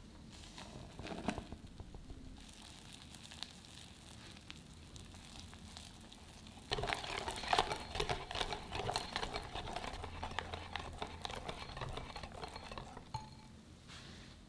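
A wire balloon whisk stirring cake flour into egg-yolk batter in a glass bowl: rapid scratchy clicks and scraping as the wires work the thick batter and touch the glass. There are a few light taps early on; steady whisking starts about halfway through and stops shortly before the end.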